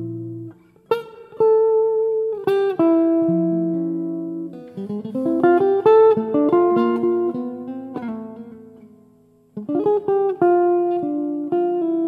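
Solo jazz guitar on a hollow-body guitar, played as chord-melody: plucked chords and melody notes ring out and decay, and the sound dies away about eight seconds in before the next phrase begins.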